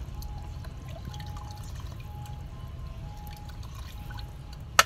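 Broth splashing and trickling as a ladle stirs it and pours it back into an aluminium pot of pork soup, with one sharp clink near the end.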